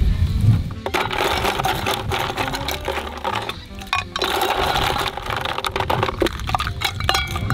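Dumplings frying in oil in a pan, a dense crackling sizzle that drops off briefly about halfway through, with background music.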